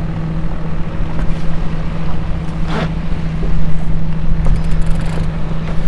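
Boat engine running steadily with a constant low hum, with wind buffeting the microphone.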